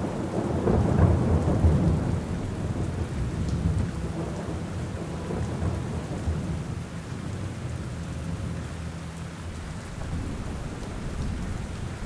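Steady rain with a long, low rumble of thunder, loudest in the first couple of seconds and slowly fading.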